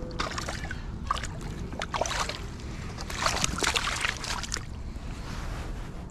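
Steady wind rumble on the microphone, with scattered clicks and a burst of crackly, hissy noise about three seconds in that lasts a second or so.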